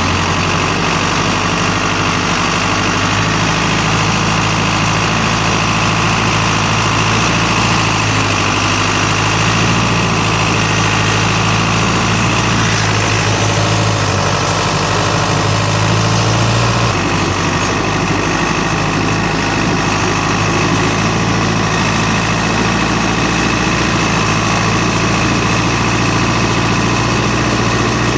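Skidder's diesel engine running steadily while it pushes snow, its low note shifting a little about halfway through.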